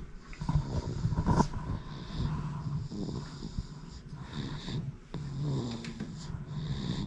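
A three-month-old baby snoring in his sleep, several soft rasping snoring breaths one after another.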